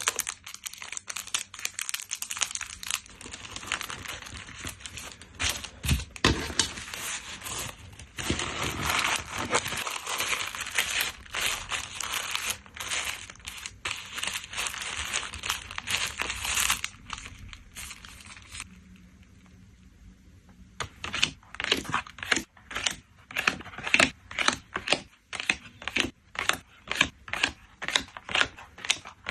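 Plastic packaging for photocards being handled, with dense crinkling and some tearing for most of the first half. After a brief lull, a quick run of sharp clicks follows, about three a second.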